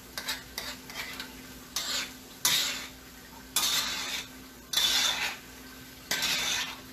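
Cream sauce of chicken Marsala simmering in a wide pan on the stove, giving short hissing sizzle bursts about once a second or so. A faint steady hum runs underneath.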